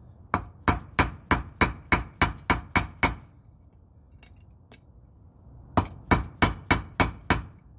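Mallet striking a steel socket to drive a wheel bearing's outer race into a steering knuckle: about ten sharp, slightly ringing taps at roughly three a second, a pause of a couple of seconds, then about six more. The bearing is being pressed home and is nearly seated.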